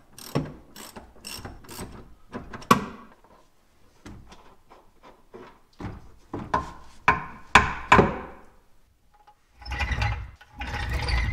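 Ratchet wrench clicking in short strokes on the bolts of a VW Golf's rear shock absorber, with a few louder metallic knocks partway through. Near the end comes a louder rattling, scraping clatter as the shock absorber is worked free.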